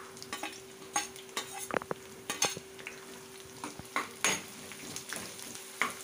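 Onion, garlic, green chillies and peanuts frying in oil in a kadai, sizzling as a spatula stirs them, with repeated scrapes and clicks of the spatula against the pan. A faint steady hum runs underneath.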